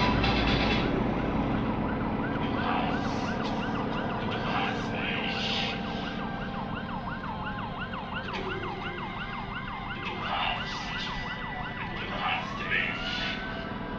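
An electronic vehicle siren yelping, its pitch sweeping up and down about two and a half times a second, then switching near the end to a slow rising wail. Underneath, the low rumble of aircraft engines fades away at the start.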